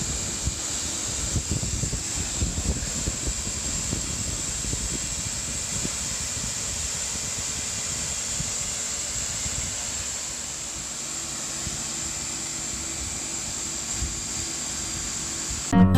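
Sun Joe SPX4001 electric pressure washer running and spraying: a steady high motor whine over the hiss of the jet, with uneven low spattering of the water on the concrete, busier in the first ten seconds. Acoustic guitar music cuts in at the very end.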